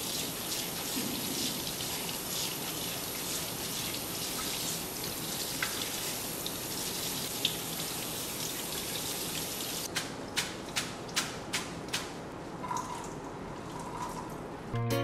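Water running steadily from a kitchen tap into a sink for about ten seconds, then the flow stops and a string of short knocks follows.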